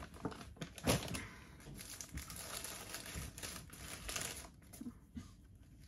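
Paper rustling and crinkling as a burger is pulled out of a Burger King paper bag and handled in its paper wrapper, with a sharp crinkle about a second in being the loudest.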